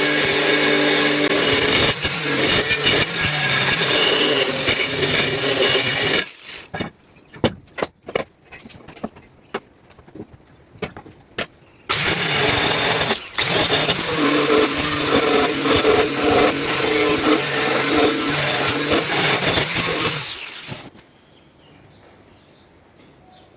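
A handheld electric power tool running against rusted metal in two long runs, each lasting several seconds. Between the runs the tool is off and there are scattered clicks and knocks of metal being handled.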